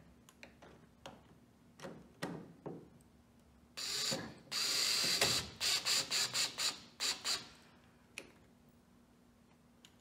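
Cordless drill-driver driving the screws of a VW Mk1 Caddy taillight lens. There are a few clicks, then a short run, a run of about a second, and a string of quick short bursts on the trigger about two seconds long.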